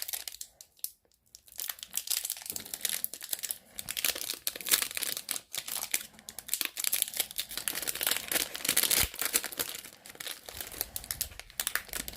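Plastic wrapper of a Panini Donruss basketball card pack crinkling and tearing as it is opened, an irregular run of crackles that starts about a second and a half in.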